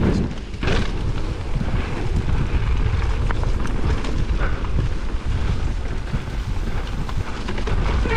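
A Cannondale Moterra LT2 mountain bike descending a rough dirt trail: the tyres and bike give a dense, rough rumble with a few sharp knocks over bumps, under wind buffeting the microphone.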